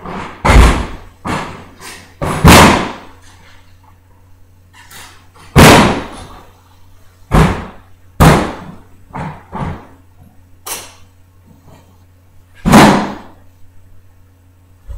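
A series of loud, irregular bangs and thuds, about ten in all, each dying away quickly, over a steady low hum.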